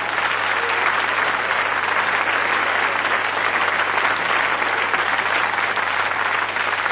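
Live theatre audience applauding steadily, the clapping thinning out near the end, over a faint low hum in the recording.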